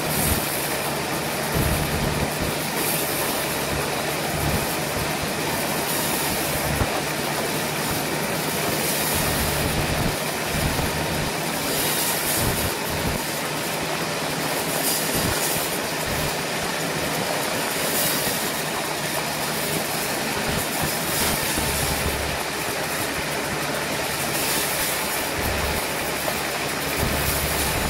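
Sawmill running steadily: a low engine hum under a dense, rasping machine noise, with the high hiss swelling every few seconds.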